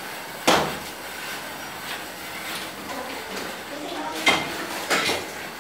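Metal gym weights clanking: one sharp clank about half a second in, then two more close together near the end, each with a short ring.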